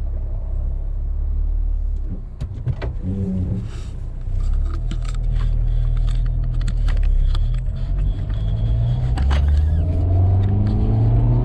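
Honda Civic Si's 2.4-litre four-cylinder engine and exhaust running with a low rumble, with scattered clicks and knocks in the first half. Revs climb near the end.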